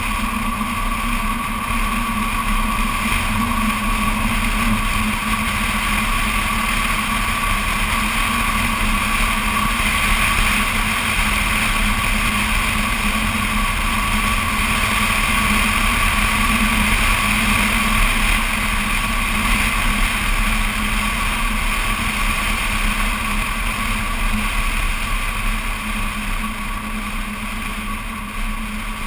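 A BMW Z4 Coupé cruising at steady speed: wind rushing over an outside-mounted camera, with road noise and a constant engine drone underneath.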